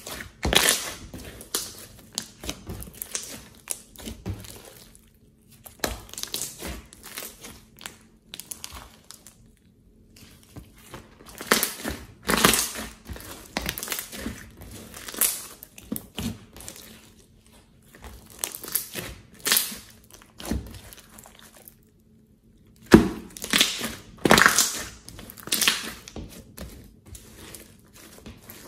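Hands squeezing, folding and stretching a large mass of thick slime, making irregular runs of wet squelches and crackling pops, with a few short pauses between handfuls.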